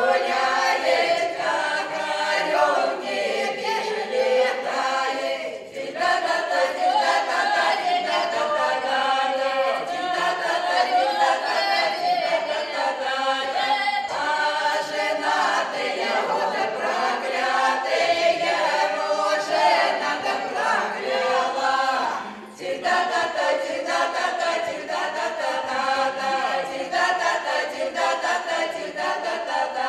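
Russian folk ensemble, mainly women's voices, singing a folk song together in chorus, with short breaks between phrases about six seconds in and again near 22 seconds.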